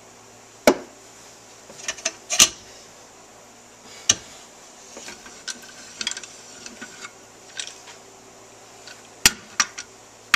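Sharp metallic clanks and clicks from a steel C-clamp being worked as it presses seals into a motorcycle suspension linkage rocker. The loudest clanks come about a second in, around two and a half seconds, and near the end, with lighter clicks between.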